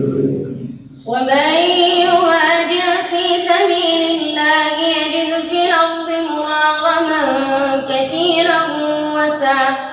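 A boy's high, clear voice reciting the Quran in melodic tajwid through a microphone, holding long sustained notes that step and waver in pitch. He begins about a second in, after a lower phrase fades out, and breaks off for breath at the end.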